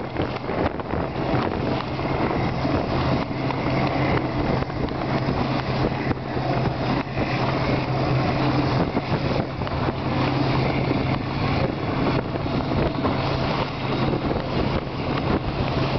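Outboard motor of a small motor boat running steadily at one constant pitch, with wind buffeting the microphone and water rushing past the hull.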